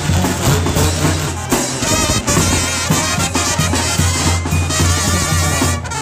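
Mexican marching brass band playing: a sousaphone bass line under trumpets and trombones with wavering held notes, and a bass drum with cymbal keeping the beat. The music breaks off and a different passage starts about a second and a half in.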